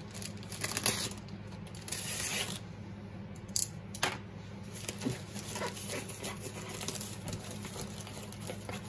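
Black plastic mailer bag being torn open by hand, the plastic rustling and crinkling in short irregular bursts.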